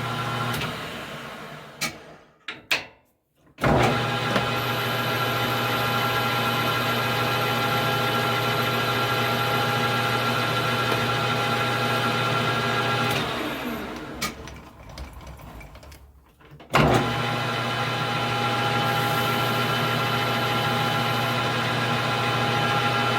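Metal lathe running with its power feed engaged, a steady motor hum. It is shut off and winds down within the first two seconds, with a few clicks, starts again with a sudden jump in level, winds down again with falling pitch about 13 seconds in, and starts again a few seconds later.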